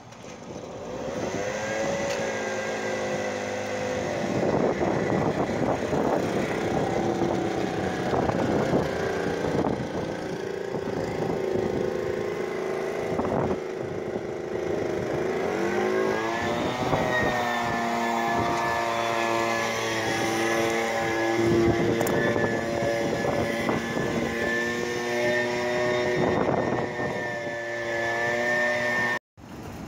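An engine running steadily. About halfway through it speeds up and holds at the higher pitch.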